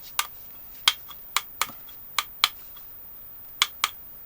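Used 18650 lithium-ion cells clicking and clinking as they are handled and set down: a run of sharp, irregular clicks, with a pause of about a second partway through.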